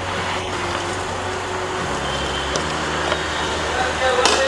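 Steady low hum with a hiss.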